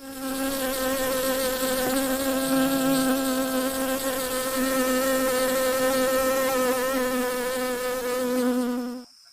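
A bee colony buzzing: a loud, steady hum of many bees' wings that cuts off abruptly near the end.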